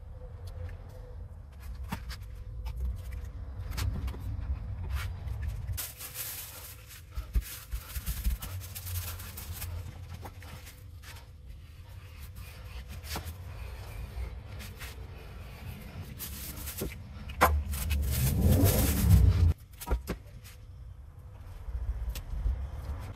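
Plastic cling film crinkling and masking tape being handled and pressed down by hand, with scattered clicks and rustles over a low rumble. A louder rushing noise swells for about two seconds near the end.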